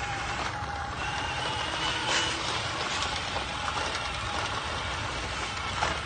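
Electric drive motors and gearboxes of Huina RC dump trucks whining steadily as one truck tows the other across gravel, over a constant low rumble. There are a couple of short clicks, one about two seconds in and one near the end.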